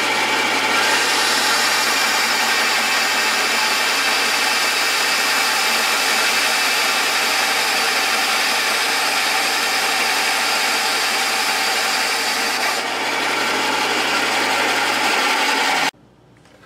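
Bandsaw running and cutting through two taped-together wooden blocks, a steady blade and motor noise over a low hum. It cuts off suddenly near the end.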